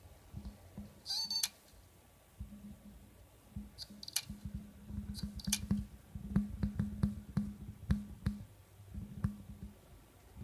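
Laptop hard disk clicking irregularly, many clicks in quick runs with short bursts of low hum between them, thickest in the second half. The owner takes this clicking for the sign of a drive at the end of its life. About a second in there is a brief high-pitched squeal.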